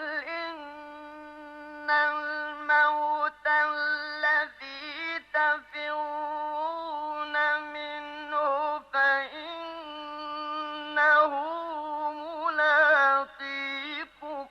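A man's solo voice chanting a Quran verse in slow, drawn-out tajweed style, with no accompaniment: long held notes with melodic turns and wavering ornaments, broken by a few short breaks.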